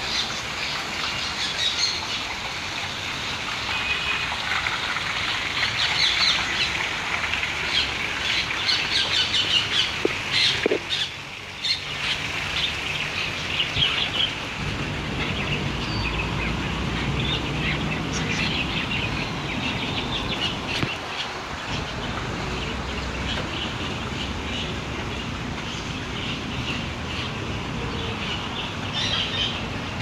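A chorus of many caged birds chirping and calling at once, short overlapping calls throughout, with a brief lull a little after ten seconds in.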